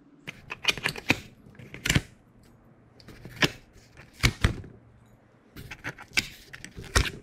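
Utility knife blade slicing through corrugated cardboard in about five short strokes, each a quick run of sharp crackling clicks.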